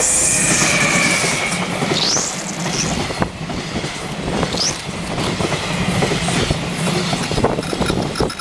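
Train running past on the line: a loud, steady rumble and clatter of wheels on rail, with two short rising high squeals about two and four and a half seconds in.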